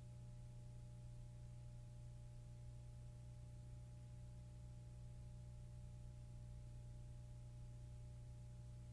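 Near silence: faint, steady low hum and hiss of room tone.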